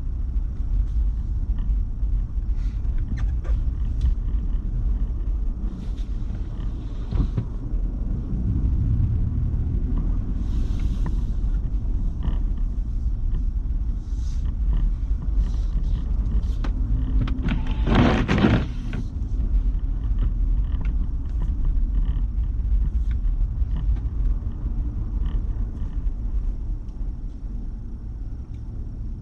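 Steady low rumble of a moving car heard from inside the cabin, with light scattered ticks and one louder burst of noise lasting about a second, roughly two-thirds of the way through.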